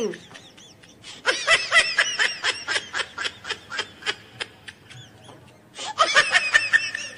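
A person laughing in a long run of quick, high-pitched giggles that trail off, then a second short burst of laughter near the end.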